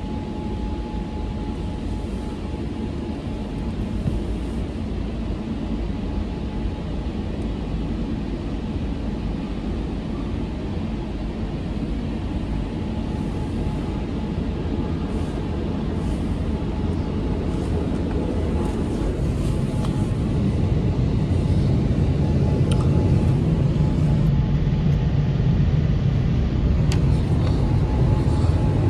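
WashTec SoftCare Prevo rollover car wash running, heard from inside the car: a steady rumble and swish of spinning cloth brushes and water, with a faint steady whine. The rumble grows louder in the last third as a side brush comes up against the side window.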